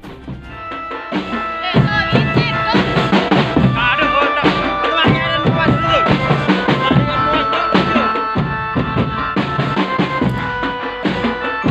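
Music with a steady beat on drums under a melody line, starting softly and growing louder about two seconds in.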